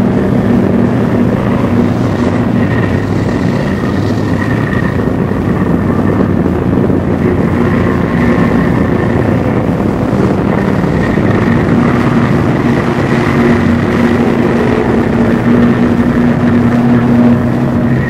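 A loud, dense wall of droning noise with a few steady held tones layered in, typical of a dark ambient or noise-music track.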